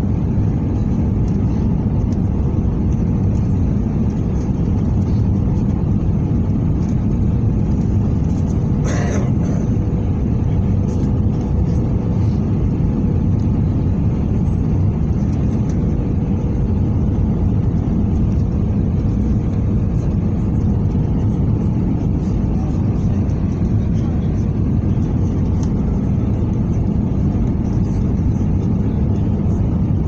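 Steady engine and airflow noise inside an airliner's passenger cabin on approach to landing, deep and even throughout. A brief, sharper sound cuts through about nine seconds in.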